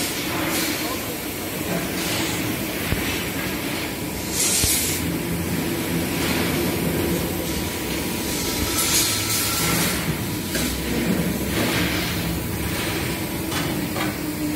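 Steady machinery noise of a factory hall, a low hum with a thin steady whistle above it, broken by short hisses about four and a half and nine seconds in.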